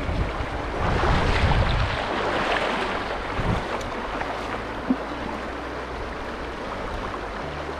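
Rushing of a shallow, fast-flowing river, with wind buffeting the microphone and swelling about a second in. A single sharp click about five seconds in.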